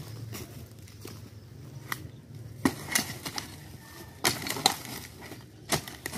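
A pile of dry logs and sticks being pried apart and knocked aside with a long metal hooked bar, giving a string of irregular sharp knocks and cracks of wood.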